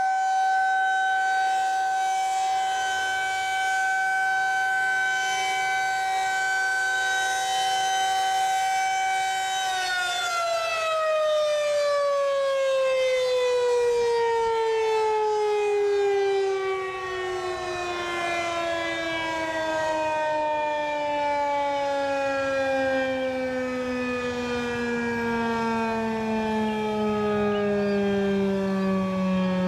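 Federal Signal 2001-SRN electromechanical outdoor warning siren sounding for a monthly test, holding a steady tone. About ten seconds in it begins winding down, its pitch sliding steadily lower.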